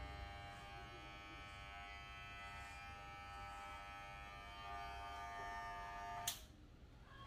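Electric hair clippers buzzing steadily as they cut short hair, then switched off with a sharp click about six seconds in.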